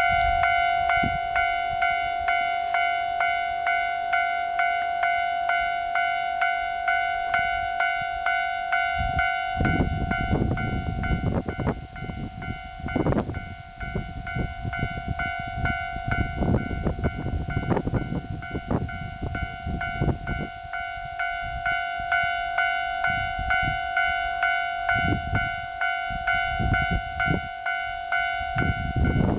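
Japanese level-crossing warning bell ringing "kan-kan" in a steady rhythm of about two strokes a second, signalling that a train is approaching. From about nine seconds in, a train passes over the crossing for roughly twelve seconds, its rumble and wheel clicks on the rail joints running under the bell, and a rumble returns near the end.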